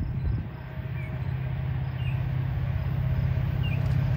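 Low steady drone of an approaching Metra commuter train's diesel locomotive, growing louder near the end, with a few short bird chirps.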